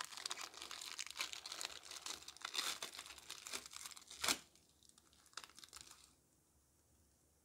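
Clear plastic cellophane wrapping crinkling and tearing as it is peeled off trading cards, with one sharp crackle about four seconds in. The sound then dies down to a few faint rustles.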